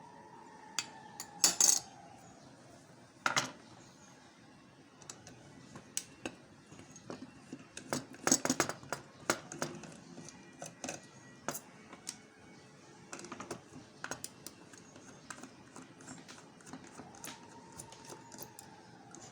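Small metal hard-drive parts and hand tools clicking and clinking in irregular bursts as a hard disk drive is taken apart by hand, with its spindle motor being dismantled.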